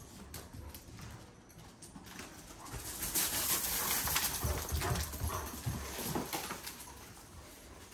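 A young Kangal dog's claws clicking on a tiled terrace floor as it trots past. The clicks are loudest from about three seconds in to about six seconds.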